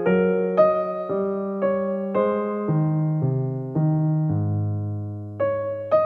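Background music: a piano-like keyboard playing a slow, gentle melody, a new note struck and fading about twice a second, with a longer low note held near the end.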